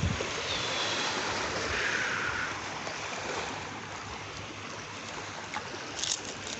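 Steady wash of surf on a beach, heard as an even hiss, with a brief rustle about six seconds in.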